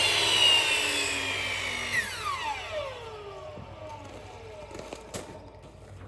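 Power saw running, then switched off about two seconds in, its motor whine falling steadily in pitch as it spins down and fades.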